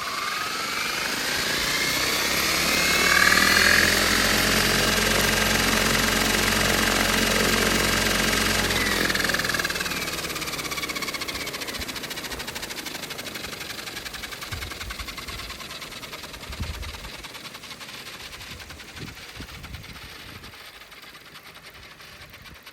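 Komatsu 730E diesel-electric haul truck with its electric drive whining. Several high tones rise in pitch, hold steady over the deep sound of the diesel engine running hard, then fall in pitch and fade. A short thump comes about three quarters of the way through.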